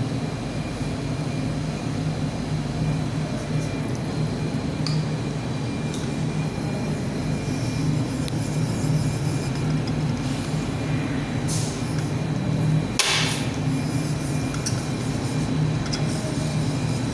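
A steady low hum, with faint knocks of a small glass beaker on a tabletop as it is swirled, and one brief scrape about thirteen seconds in.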